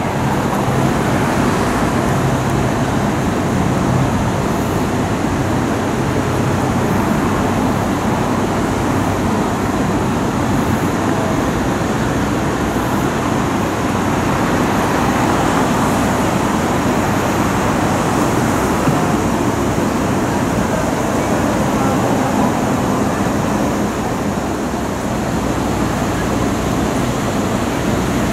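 Steady road traffic noise with a low engine hum from vehicles on the street.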